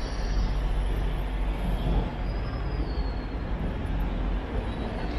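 Steady city street noise: traffic on a busy downtown road, with a heavy low rumble underneath.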